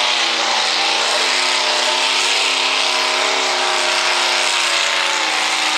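Open-rail mini rod pulling tractor's V8 engine running at full throttle under load as it drags the weight-transfer sled, its pitch wavering slightly up and down.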